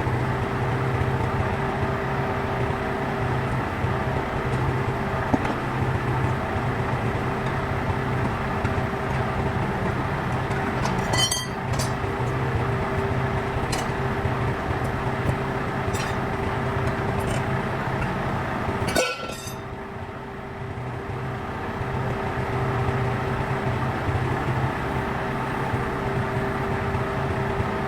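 An engine running steadily, with a few light metallic clinks in the middle and a brief drop in level about two-thirds of the way through.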